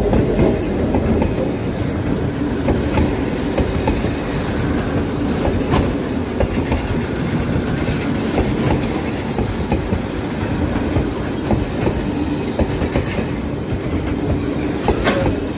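G22W-AC diesel-electric locomotive running, a steady low rumble with a few sharp clicks, one near the end.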